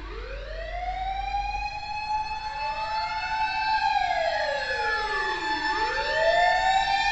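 Fire engine's mechanical motor siren winding up from a low pitch to a steady high wail, with a second siren tone joining about two seconds in that sweeps down low around five to six seconds in and winds back up: a fire vehicle on an emergency run.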